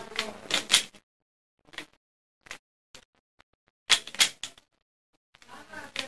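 Plastic 3×3 Rubik's cube being turned by hand: scattered sharp clicks as its layers snap round, with a quicker, louder run of clicks about four seconds in.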